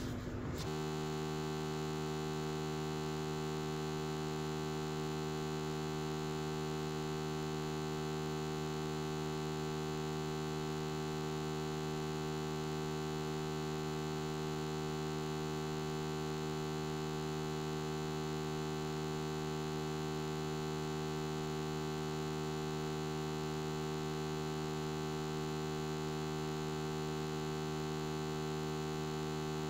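Steady electrical mains hum with many evenly spaced overtones, starting abruptly about half a second in and then holding completely unchanged.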